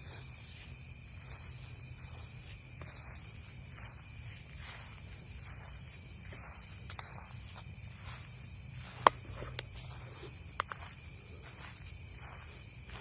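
Night insects chirping steadily in a high pulsing chorus, with soft footsteps walking outdoors. A sharp click about nine seconds in, and a smaller one a second and a half later.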